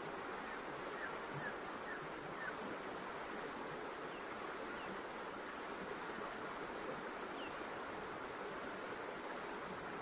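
Steady rushing outdoor noise at an even level, with a few faint bird chirps over it.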